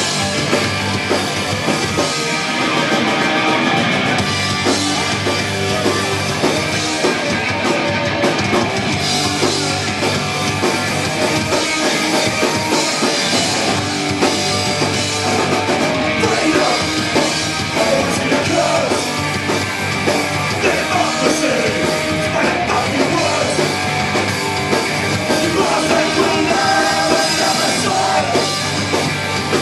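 Punk rock band playing live at full volume: distorted electric guitars, bass and drum kit, with a man singing into a microphone over them.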